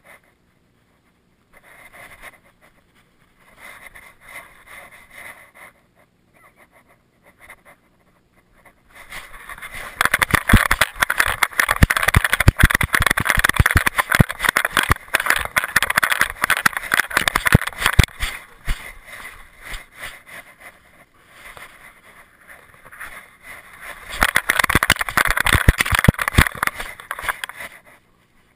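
Handling noise from a camera worn by a dog, rubbing and knocking against fur and collar as the dog moves. It is faint and scattered at first, then becomes loud, dense rustling and clatter about ten seconds in, eases off, and comes back near the end.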